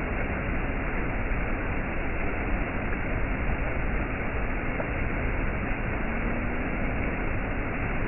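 Shallow rocky stream running over small cascades and ledges: a steady, even rush of water.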